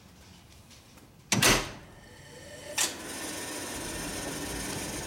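Steel door of a Peterson parts-cleaning burn-off oven clanging shut about a second in, with a lighter clank a moment later. The oven then starts up and runs with a steady hum and hiss.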